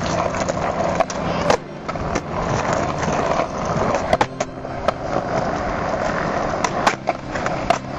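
Skateboard wheels rolling on concrete, with sharp tail pops and board slaps from flatground tricks: about ten clacks scattered through, with clusters around four seconds in and near the end.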